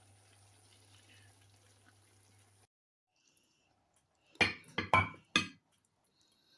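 A faint steady hiss with a low hum that cuts off abruptly, then four sharp knocks or clinks in quick succession about two seconds later.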